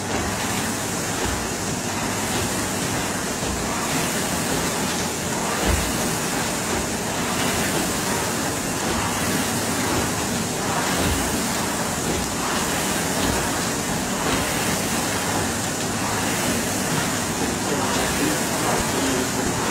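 Steady whooshing din of gym exercise machines, mostly the flywheels of several air-resistance rowing machines, with faint voices under it.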